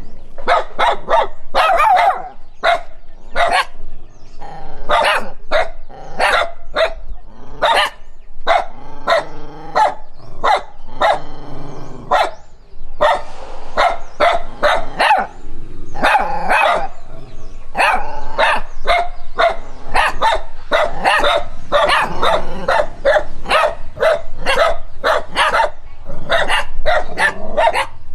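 A dog barking at a stranger, loud, sharp barks coming over and over at about two a second, broken for a few seconds near the middle by longer, wavering calls.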